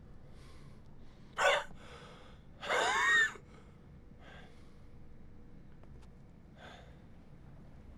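A man's sharp intake of breath about one and a half seconds in, then a louder, longer gasping breath with some voice in it around three seconds in. Two fainter breaths follow later.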